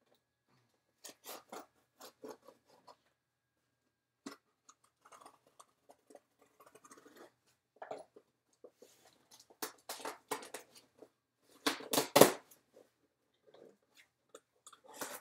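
Knife slitting the packing tape on a cardboard box in short, irregular scraping strokes, with cardboard rubbing and crackling; the loudest strokes come about twelve seconds in.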